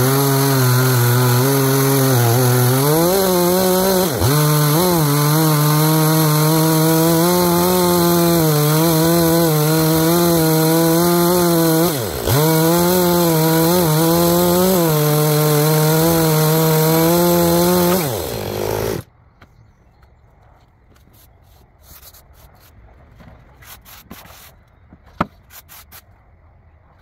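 Gas chainsaw running at full throttle on a chainsaw mill, ripping lengthwise through an apple log, its pitch dipping briefly twice under load, then cutting off suddenly about two-thirds of the way through. Afterwards, faint strokes of a hand brush sweeping sawdust off the freshly cut apple board.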